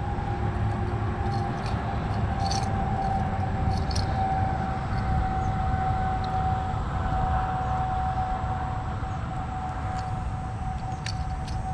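Steady wind rumble on the microphone with a constant high whine, and a few faint metallic clicks from pliers working a crankbait's treble hook out of a bass's mouth.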